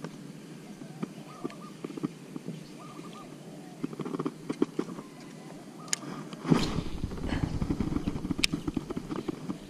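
A cast with a baitcasting rod and reel: a few small reel clicks, then about two-thirds of the way in a sudden whoosh as the rod swings, followed by the spool spinning as line pays out for about three seconds.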